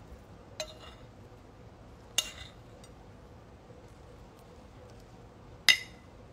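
Three sharp clinks of tableware, each with a short ring: one about half a second in, one about two seconds in, and the loudest near the end.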